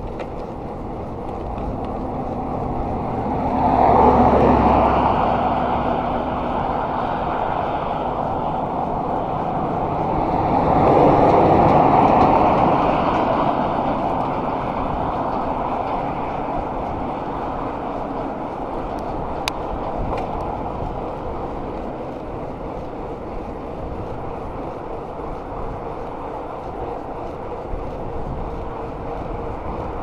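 Steady wind rush and bicycle tyre noise on asphalt while riding at speed, with two motor vehicles passing, each swelling and fading, about four seconds in and again about eleven to thirteen seconds in.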